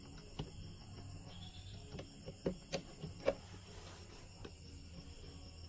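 Scattered faint clicks and taps as fabric and zipper tape are shifted and repositioned under a sewing machine's presser foot, with the machine not stitching. Underneath runs a steady faint high-pitched drone.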